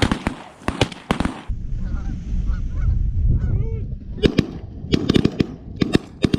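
Rapid volley of shotgun blasts from several hunters, a cluster in the first second and another quick run from about four seconds in, with geese honking between the shots. A low rumble fills the middle stretch.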